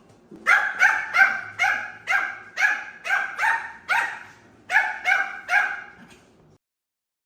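Dog coughing in a rapid honking fit of about a dozen hacks, roughly two a second, with a short pause two-thirds of the way through; the goose-honk cough typical of tracheal collapse.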